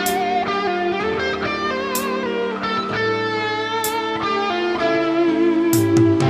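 Suhr S4 electric guitar through an Axe-Fx II playing a lead solo, with singing, vibrato-laden notes. It plays over a slow ballad backing track with sustained chords, bass notes and a hit about every two seconds.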